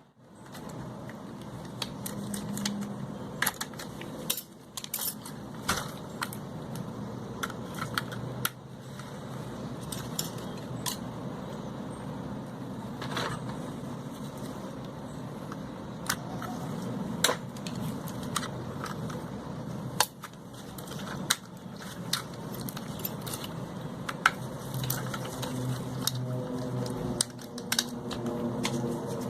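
Irregular small clicks and clatter of tools and plastic and metal parts being handled while a drone is worked on. Music comes in over it in the last few seconds.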